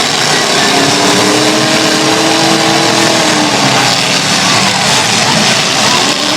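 Several demolition derby cars' engines revving loudly at once, their pitch rising and falling with the throttle.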